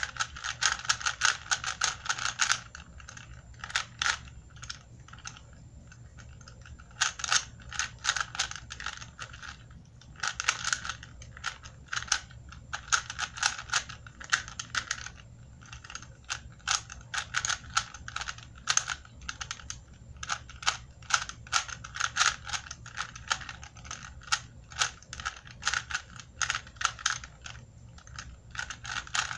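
Rubik's Cube being twisted rapidly by hand: runs of quick plastic clicking and clacking as the layers turn, broken by short pauses between sequences of moves.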